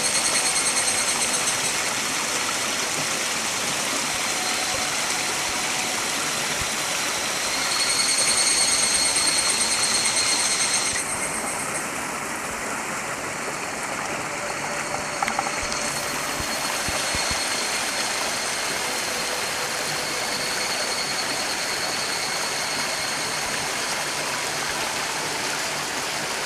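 Mountain stream rushing and splashing over rocks in a steady wash of water noise, with a thin high buzz above it that comes and goes.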